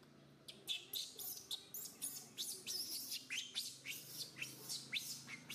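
Baby macaque crying: a fast run of short, high-pitched, falling squeals, about four a second, starting about half a second in. This is the distress crying of an infant denied milk by its mother.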